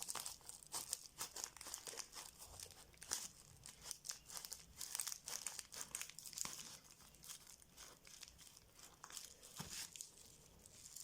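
A delivery package being cut and torn open, its packaging crinkling and tearing in many small irregular crackles. The sound is faint.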